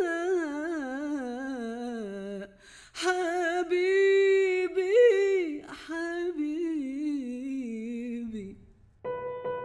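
A woman's voice singing a wordless, ornamented Arabic melody unaccompanied, with vibrato, in three phrases that each fall in pitch. Near the end the voice stops and soft keyboard chords come in.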